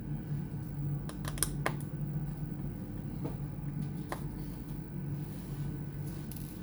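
A few light clicks and taps from handling a laptop's parts and small tools during disassembly, a cluster about a second in and single ones later, over a steady low hum.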